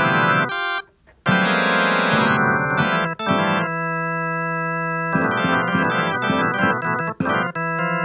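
Electronic keyboard playing sustained organ-like chords. The sound cuts out briefly about a second in, then the chords resume and change every second or so.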